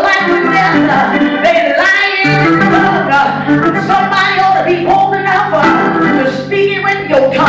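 Church music: singing with instrumental accompaniment. Steady low held notes come in underneath about two seconds in.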